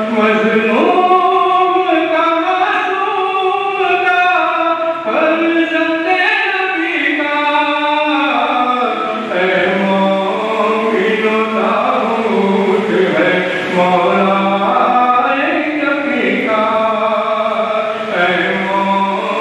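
A noha, a Shia mourning lament, chanted by several voices together in a held, stepwise melody.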